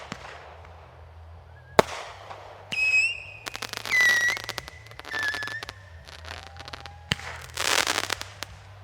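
Fireworks going off: two sharp bangs, wavering whistles with crackling in between, and a loud crackling burst near the end.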